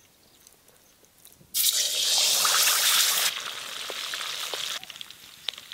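A whole chilli-marinated fish deep-frying in hot oil: a loud sizzling hiss starts suddenly about a second and a half in, eases to a softer sizzle about halfway through, and settles near the end into a quieter sizzle with scattered crackles and pops.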